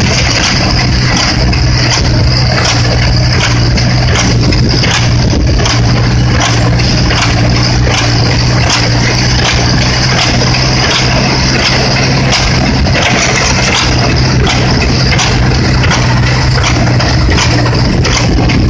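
Tractor and a vintage engine-driven small square baler running steadily while baling straw, the engine hum overlaid with the baler's regular knocking as it packs and pushes out bales.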